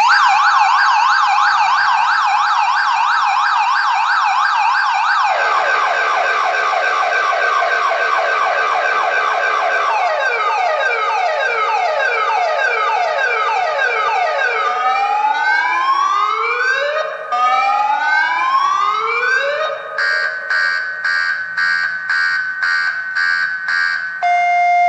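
Viper car alarm siren going off loudly and cycling through its tones: a fast warble, then a slower warble, then quick sweeping yelps, then slow rising whoops about two seconds apart, and finally rapid pulsing beeps.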